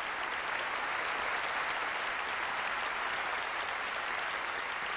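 Audience applauding steadily, a dense even clapping from a large hall, as the aircraft is unveiled.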